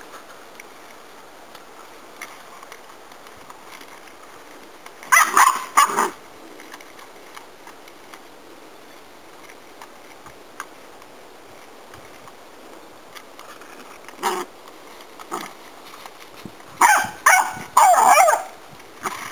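Puppy barking in short, high-pitched barks: two quick barks about five seconds in, a single bark and then another a second later, and a rapid string of barks near the end.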